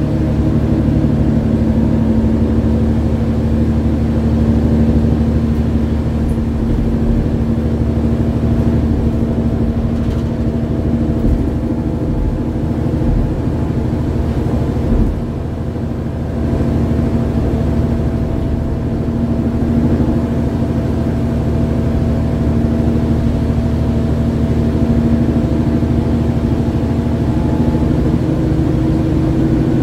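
Mercedes-Benz Citaro G articulated bus's OM 906 hLA six-cylinder diesel heard from inside the bus while driving, a steady engine hum. There is a brief dip in loudness about halfway through.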